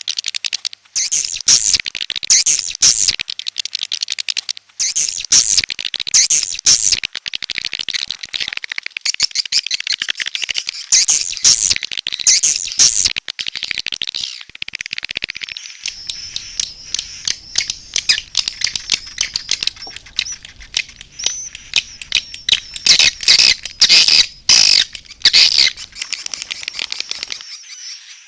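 Swiftlet lure call: dense, rapid twittering chirps and clicks of swiftlets, with a held high thin tone under the chirping through the middle stretch.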